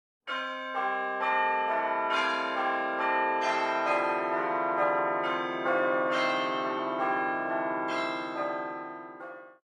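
Church bells ringing in sequence, about two strikes a second, each ring hanging on and overlapping the next; the ringing dies down near the end and cuts off suddenly.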